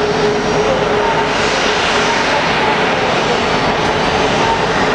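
Boeing 737-500's CFM56-3 turbofan engines running at taxi power: steady engine noise with a faint, steady whine.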